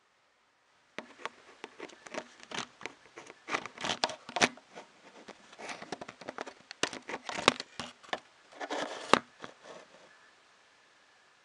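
Irregular clicking, tapping and rustling of small printer parts and cable being handled and pushed into place during assembly. It starts about a second in, with a few sharper clicks standing out, and stops near the end.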